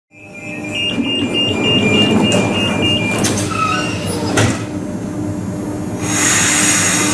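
Renfe class 447 electric suburban train standing at a platform with its equipment humming. A rapid run of door-closing warning beeps lasts about two seconds, followed by two knocks as the sliding doors shut, then a loud hiss of air about six seconds in as it prepares to pull away.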